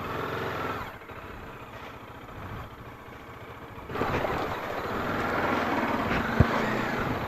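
Bajaj Dominar 400's single-cylinder engine running at low revs, then louder from about four seconds in as the bike is worked free of deep mud and slush. There is one short knock near the end.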